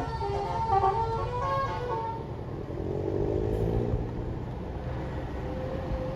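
Bus telolet (Basuri) multi-tone horn playing a quick tune of stepped notes, stopping about two seconds in. The bus's engine runs on underneath.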